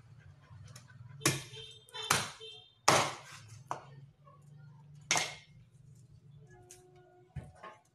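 Meat cleaver chopping raw meat on a wooden chopping board: about half a dozen heavy chops at uneven spacing, the first few ringing briefly.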